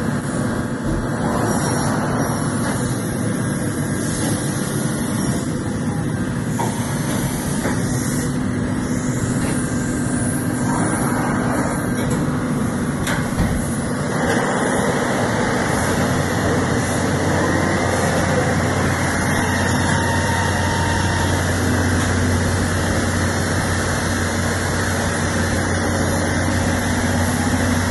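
Deckel FP 4 CC/T CNC tool milling machine running: a steady mechanical hum and whirr. A deeper hum joins about halfway through.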